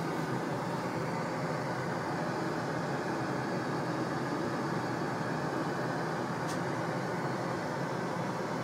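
Steady airliner cabin noise, the even drone of engines and airflow heard inside an aircraft lavatory, with one faint click about six and a half seconds in.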